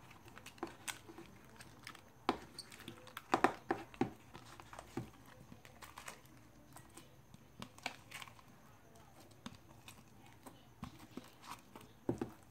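Hands kneading homemade glue slime in a thin plastic bowl and handling the bowl: irregular sticky squishes, clicks and crackles, with a cluster of louder ones a few seconds in and again near the end.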